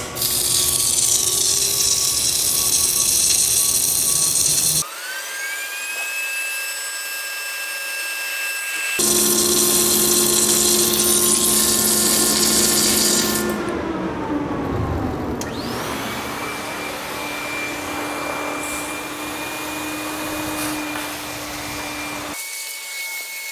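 Submerged arc welding equipment starting up: two spells of loud, even hissing, and electric drive motors whining up to a steady pitch, winding down, then running steadily. The sound cuts off abruptly several times.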